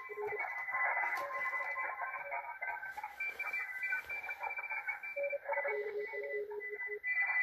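A pileup of many Morse code (CW) stations on the 40-metre amateur band, received on a Malachite DSP software-defined radio. Keyed tones at several pitches, from low to high, beep over one another with faint hiss and a few clicks. The band is too crowded for the receiver's CW decoder to read.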